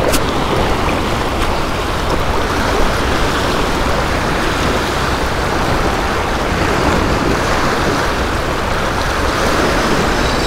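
Steady rush of choppy sea water, with wind rumbling on the microphone.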